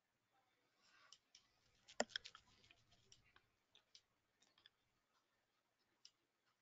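Faint clicking at a computer: a quick run of clicks from about one to three and a half seconds in, the loudest about two seconds in, then a few scattered single clicks.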